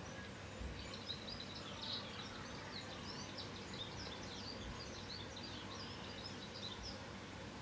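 Faint twittering of small birds: a quick run of short, high chirps close together, starting about a second in and stopping near the end, over a steady low background noise.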